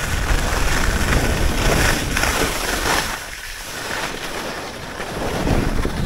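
Wind buffeting the action camera's microphone as a skier runs down a groomed slope, with skis hissing and scraping over packed snow. The rush eases about halfway through and builds again near the end.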